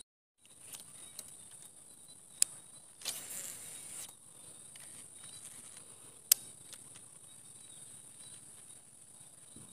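Steady high-pitched drone of insects such as crickets, broken by two sharp clicks about four seconds apart and a brief rush of noise about three seconds in.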